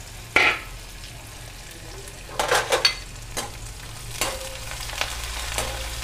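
Chopped onion frying in hot mustard oil in a wok, a steady sizzle, with a metal ladle scraping and knocking against the pan as it is stirred: a sharp stroke about half a second in, a quick cluster of them around two and a half seconds in, and lighter ones after.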